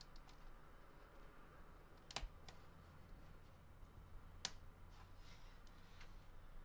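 Faint clicks and ticks as fingers pry a Nexus 7's display panel away from its bezel and softened adhesive tape, the sharpest about two seconds in and again a little after four seconds, over a faint steady low hum.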